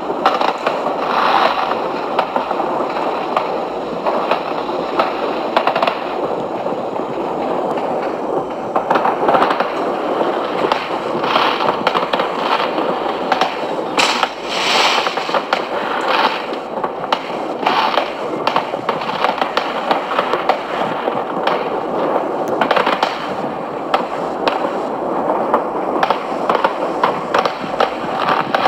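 Aerial fireworks going off continuously: a dense run of popping and crackling from many bursting shells, with sharper bangs every second or so.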